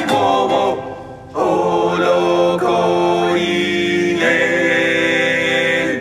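A group of voices singing in harmony. After a short dip about a second in, they hold long chords that shift a few times, then stop at the end.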